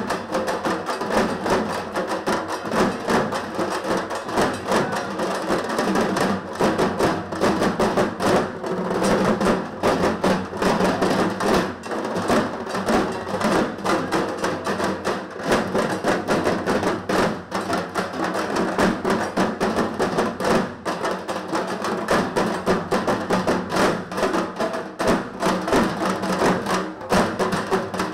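A group of dhak, the large Bengali barrel drums, beaten with thin sticks in a fast, continuous rhythm of dense strikes.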